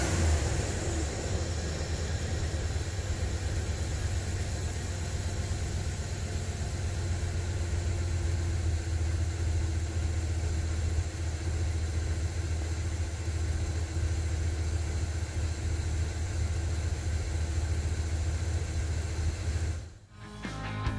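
Dodge Ram 1500 pickup's gasoline V8 idling steadily with the hood open. It cuts off shortly before the end.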